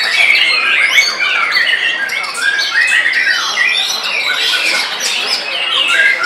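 White-rumped shama (murai batu) singing without a break, a fast, varied stream of whistles and chattering notes, with other birds' song overlapping it.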